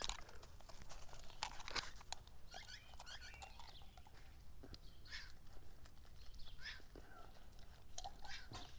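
Siberian husky nosing around right at the camera: quiet snuffling, with scattered clicks and scuffs from paws on gravel and concrete.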